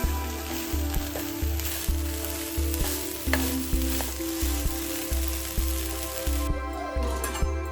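Food sizzling in a frying pan as it is stirred; the sizzle cuts off suddenly near the end. Background music with a steady low beat runs underneath.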